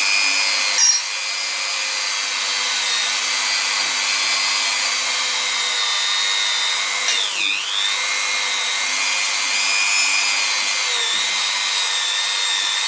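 Dremel rotary tool running a polishing bit inside a brake caliper's cylinder bore, a steady high whine, polishing off corrosion. About seven and a half seconds in the pitch dips briefly and comes back up.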